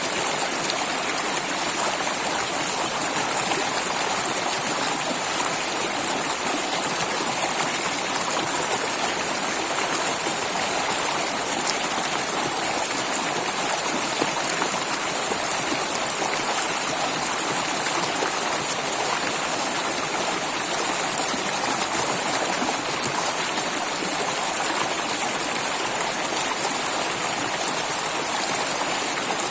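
Flowing water running steadily without a break, as from a stream.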